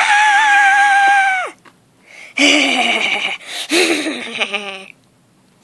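A person's voice screaming: one long, high, steady scream of about a second and a half, then after a short pause a lower, wavering cry lasting about two and a half seconds. It is an acted scream for a toy character.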